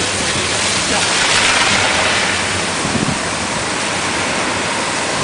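Water jets from Angus Fire OM80 oscillating fire monitors spraying and falling as a steady, loud rushing hiss.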